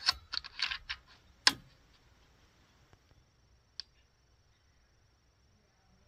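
A quick run of sharp mechanical clicks in the first second, another click about a second and a half in, and a faint tick near four seconds: the FX Panthera .30 air rifle being cycled and readied between shots.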